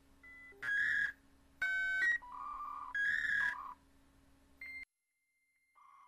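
A run of short electronic beeps and bleeps at different pitches, about half a dozen in the first five seconds. After a short silence a steady electronic tone begins near the end.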